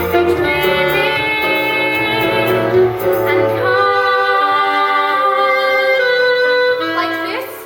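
Show-tune music from a musical number, with long held notes. The bass drops out about halfway, and a quick rising run comes near the end.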